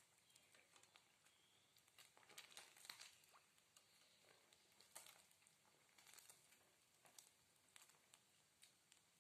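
Faint crackling and popping of chicken pieces deep-frying in hot oil, with scattered clicks of metal tongs turning the pieces in the pan. The clicks are busiest about two to three seconds in.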